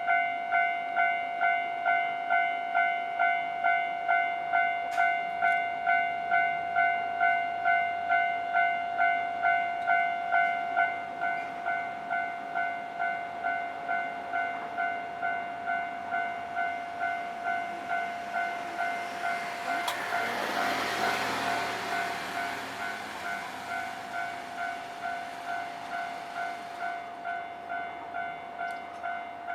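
Japanese level crossing warning bell ringing steadily, about two dings a second, all the way through. From around the middle a Hankai Tramway tram rumbles over the crossing, loudest a little past two thirds of the way in, then fading while the bell keeps ringing.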